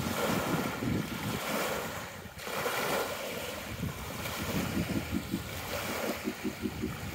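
Wind buffeting the microphone over small waves lapping on a sandy lake shore, easing briefly about two seconds in.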